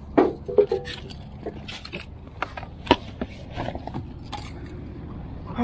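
Gear being handled and set down in a vehicle's back seat: a few sharp knocks and clicks with light rattling, over a steady low rumble.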